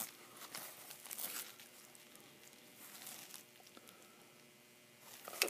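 Faint handling noise of silver coins in clear plastic capsules being turned over in the fingers: light crinkling rustles and a few soft clicks.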